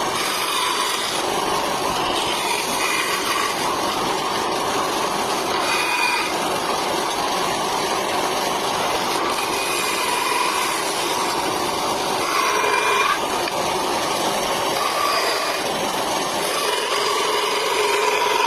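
Mini bandsaw running and cutting wood: a steady machine noise with a whine that fades in and out and dips briefly in pitch about two-thirds of the way through.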